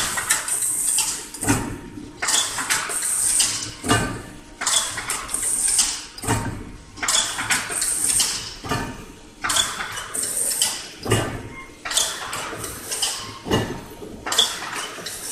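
Crimped wire mesh weaving machine running, with a repeating cycle of metallic clattering and clanking roughly every one to two seconds over a steady mechanical hiss.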